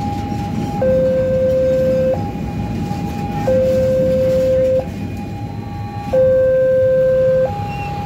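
Railway level-crossing alarm from a pole-mounted loudspeaker: an electronic two-tone signal alternating high and low, each tone held about a second and a half. Under it is a low rumble from a freight train of fuel tank wagons rolling past.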